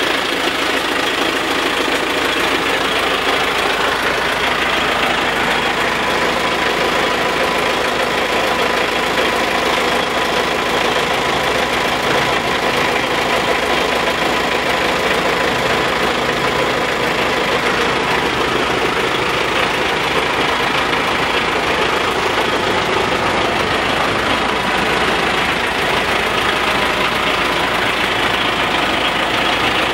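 GAZ-3309 truck's four-cylinder MMZ D-245 diesel idling steadily.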